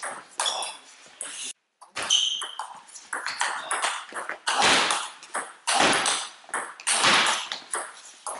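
Table tennis rally: the ball clicking off rackets and the table in quick, irregular strokes, the harder hits ringing on in the hall, with a few short high squeaks.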